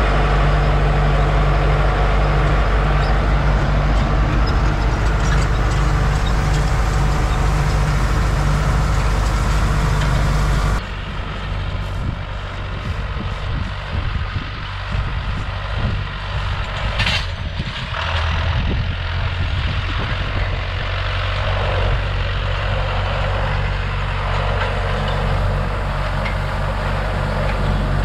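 Tractor engine running steadily under load, loud and droning, heard from inside the cab. About 11 s in it changes to a quieter tractor engine heard from outside, growing louder toward the end as a tractor pulling a rotary hay rake comes closer.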